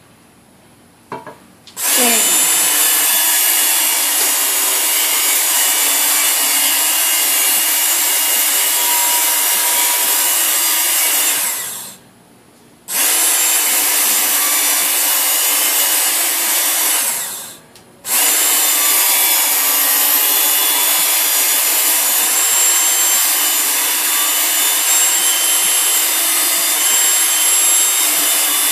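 Handheld Work Sharp electric belt sharpener running its fine belt against a steel shovel's edge to polish it: a steady, high-pitched grinding whir. It starts about two seconds in, cuts out for about a second twice, and stops just before the end.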